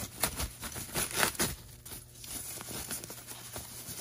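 Rustling and crinkling of a thin white packing wrap being pulled off a metal camera tube by hand, in quick irregular handfuls that are loudest in the first two seconds.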